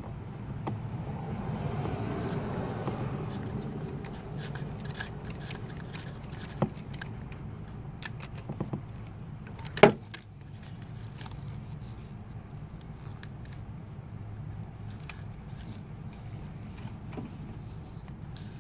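Metal tools clinking and ticking against the engine as a socket on a long extension is worked on a glow plug, with one sharp metallic clank about ten seconds in. A steady low hum lies underneath and swells in the first few seconds.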